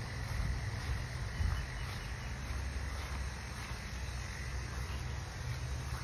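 Outdoor ambience with steady insect chirring, under a constant low rumble on the phone's microphone.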